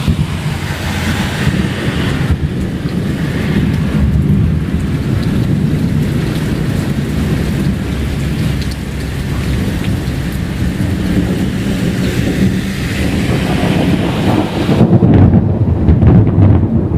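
Thunder rumbling on and on with rain falling. The rumble swells louder about two seconds before the end.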